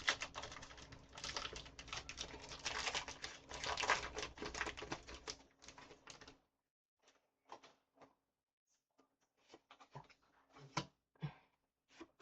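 Packaging of a Pokémon card pack crackling and crinkling as it is opened, a dense run of fast clicks for about six seconds. It is followed by a few scattered soft clicks and taps as the pack and cards are handled.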